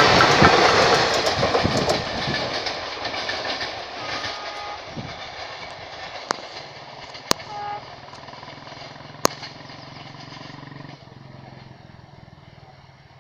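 Express passenger train's coaches rattling past at speed, wheels clattering on the rails. The noise fades steadily over about ten seconds as the train recedes into the distance. A few sharp clicks stand out midway.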